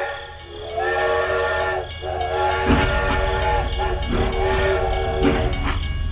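A multi-tone horn sounding three long blasts over a low machine rumble that comes in about halfway through.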